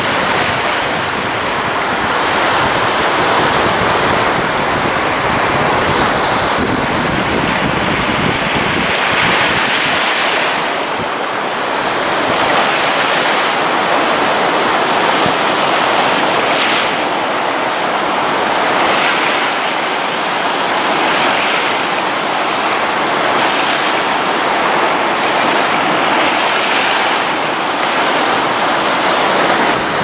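Moderate Baltic Sea waves breaking and washing up a sandy beach: a continuous rush of surf that swells and eases gently. Wind rumbles on the camera's built-in microphone, heaviest in the first third or so.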